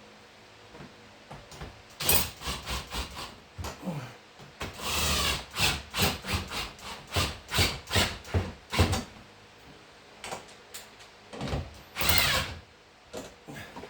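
Tools and hardware clanking and knocking while bolts are fitted, with two short bursts from a power driver, one about five seconds in and one near the end.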